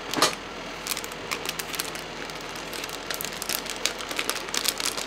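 Irregular rustling and crackling of paper and plastic packaging being handled, with a sharper crackle right at the start.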